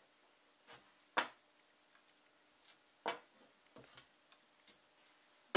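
About half a dozen light, scattered clicks and taps of a block of encaustic wax being rubbed over and lifted off a heated anodized aluminum plate, the loudest about a second in.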